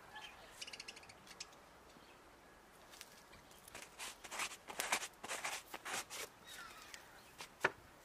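Close rustling and scraping as a goat presses against and climbs onto a person's winter jacket and scarf, with crackly scuffs from about four seconds in and one sharp click near the end.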